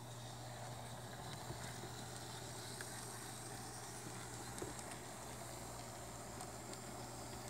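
Faint steady room noise: a constant low hum under an even hiss, with a few light clicks.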